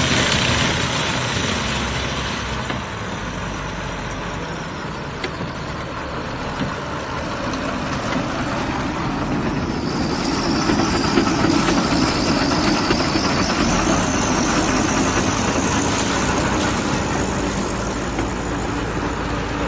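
Silage baling and wrapping machine running steadily, a dense mechanical noise from its engine and working parts that swells somewhat partway through.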